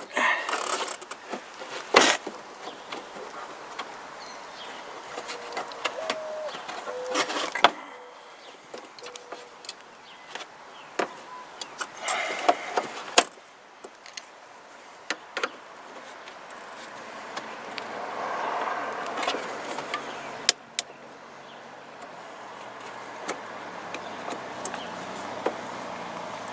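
Scattered clicks, knocks and plastic rattles from hands working up behind the inner fender liner of a Chevy HHR, releasing the wiring harness and the headlight bulb. A few louder knocks stand out, about two seconds in and again around seven and thirteen seconds.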